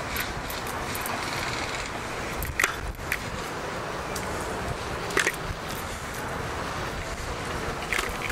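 Scooter rolling along a concrete sidewalk with a steady rushing noise, its wheels clacking sharply over the sidewalk joints three times, about every two and a half seconds.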